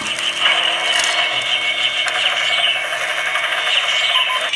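Matchbox Elite Rescue Strike Hawk toy helicopter playing its electronic sound effects through its small built-in speaker: a steady, buzzing whir.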